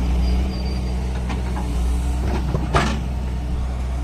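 Excavator diesel engine running steadily under its low drone, with a short sharp noise of the machine working almost three seconds in.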